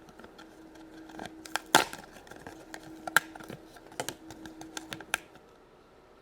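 Plastic toy parts and Play-Doh clay containers being handled: scattered clicks and taps, a few sharper ones, over a faint steady hum, stopping about five seconds in.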